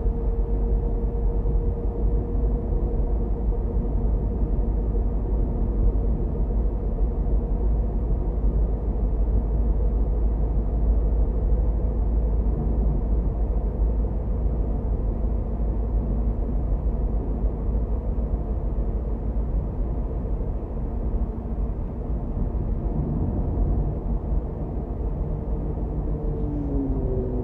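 A car driving through city traffic: a steady low rumble of engine and tyres on the road, with a faint engine hum that drops in pitch near the end as it slows.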